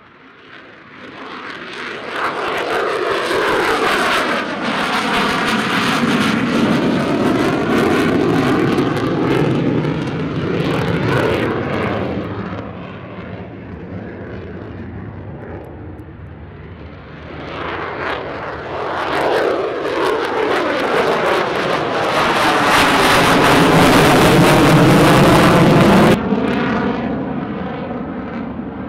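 Two F-35A fighters, each on its single Pratt & Whitney F135 afterburning turbofan, climbing out after takeoff and going over one after the other: a loud jet roar that builds over the first few seconds and eases around halfway. It builds again, louder, then drops off abruptly near the end, with a sweeping whoosh running through the roar as each jet passes.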